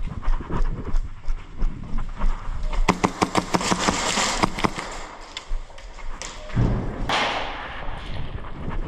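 Footsteps thudding while moving through the field, with a rapid burst of airsoft gun fire, a fast string of sharp snaps, about three seconds in.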